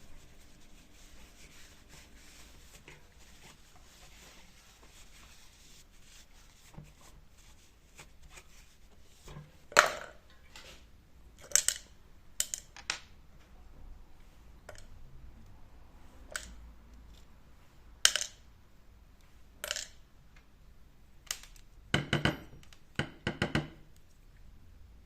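Scattered sharp metallic clicks and clinks of tools and small parts being handled, typical of a bicycle hub being worked on. The loudest comes about ten seconds in, then single clicks every second or two, and a quick cluster of clinks near the end.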